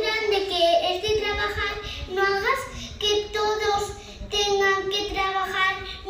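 A child's voice singing unaccompanied, in short held notes with breaks between them.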